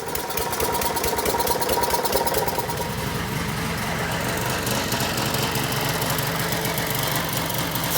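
Snapper lawn mower's small engine running steadily, with a rapid, even firing beat.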